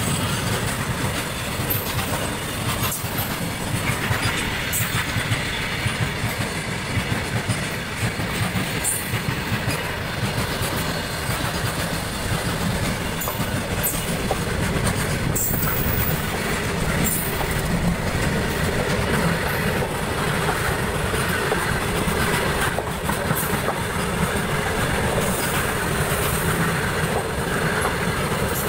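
BCNAHL covered freight wagons rolling past close by: a steady rumble of steel wheels on the rails, with scattered clicks and clatter from the wheels over the rail joints.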